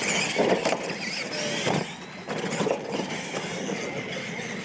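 Radio-controlled monster trucks racing over a dirt track jump: a steady roar of motors and tyres churning dirt with a faint whine, broken by a few knocks as the trucks land and bounce.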